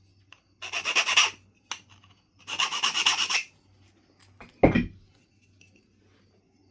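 Stone abrader rubbed along the edge of a Knife River Flint point, two scratchy rasping strokes grinding the edge to prepare platforms, followed by a single sharp knock about four and a half seconds in.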